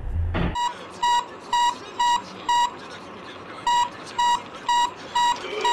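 Electronic warning beeps inside a car: one high, even-pitched beep about twice a second, four times, a pause of about a second, then five more. Low road rumble cuts off about half a second in.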